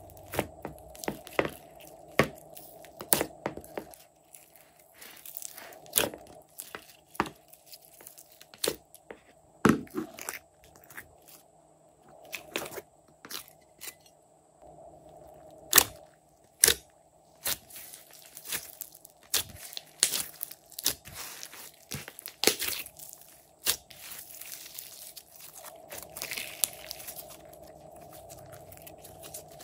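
Glossy slime being pressed, squeezed and pulled by hand, giving irregular sharp clicks and crackling pops as it sticks and tears apart.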